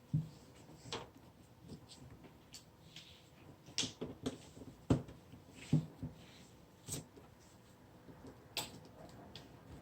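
Irregular small clicks and taps of a Phillips screwdriver and the laptop's screen parts being handled while the screen's retaining screws are taken out, the loudest knock about halfway through.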